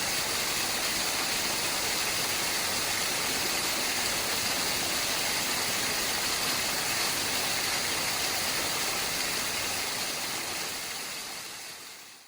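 Waterfall rushing, a steady even roar of falling water that fades out over the last couple of seconds.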